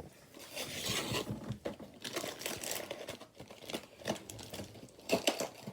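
Packaging of a blind-box toy being crinkled and torn open by hand, irregular rustling that comes and goes.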